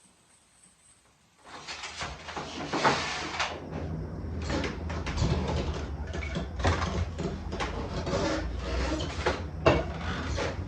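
Food containers, bottles and packages clunking, knocking and rustling as a refrigerator is emptied by hand. Starts suddenly about a second and a half in, with irregular knocks throughout.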